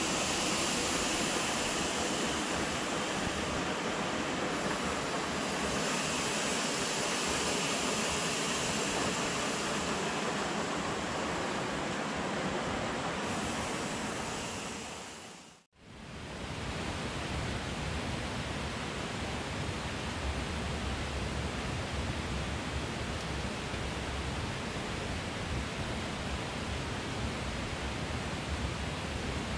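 Shallow river rushing over rocks: a steady noise of running water. It fades out about halfway through and comes back as a slightly duller steady hiss.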